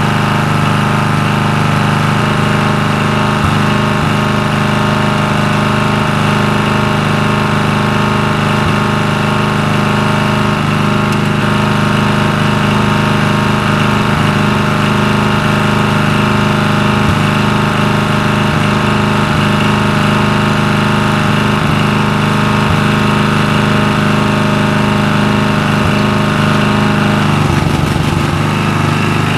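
1985 Craftsman II rear-engine riding mower's 11hp single-cylinder Briggs & Stratton engine running steadily on gasoline on its first run after three years of sitting. Its note changes near the end.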